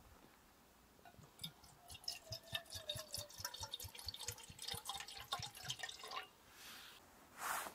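Water poured from a stainless steel vacuum flask into an aluminium Trangia cooking pot. It splashes and gurgles from about a second and a half in until about six seconds, thinning to a trickle at the end. A short rustle follows near the end.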